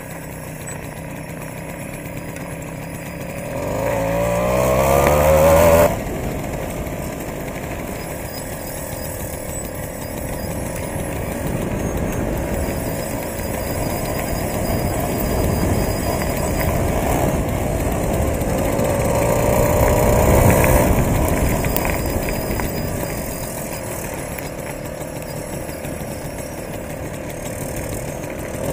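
Moped engine running under way, heard through the camera's built-in microphone. The revs climb steeply about four seconds in and drop off abruptly a couple of seconds later, then rise and fall more gently, under a constant rush of wind and road noise.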